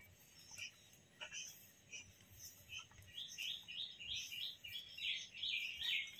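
Birds chirping in short repeated calls, sparse at first and busier over the last three seconds, with a few faint clicks from the plate and steel bowl as chopped onion and chilli are scraped in.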